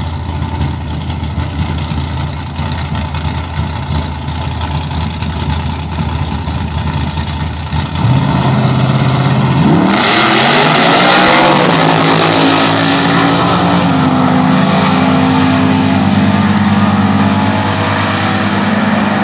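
Two Camaro drag cars idling at the starting line with a steady low rumble. About eight seconds in their engines rev with rising pitch. Just after, they launch with a sudden loud rush and accelerate hard down the strip, engines holding a steady high note that eases slightly near the end.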